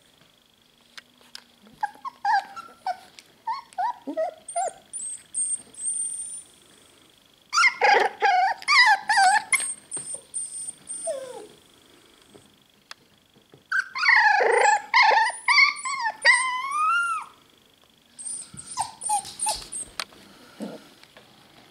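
Young puppies whining and yelping in several bouts of a few seconds each, high and wavering in pitch, with quiet gaps between.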